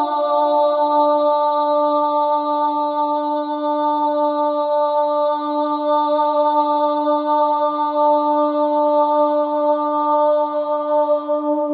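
A voice chanting one long held note, steady in pitch, which stops near the end as a new note begins.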